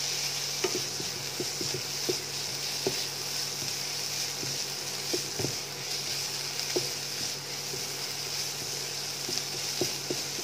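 Cauliflower rice with shredded chicken and chopped vegetables sizzling in a non-stick kadai while it is stir-fried with a spatula: a steady frying hiss with irregular light knocks and scrapes of the spatula against the pan.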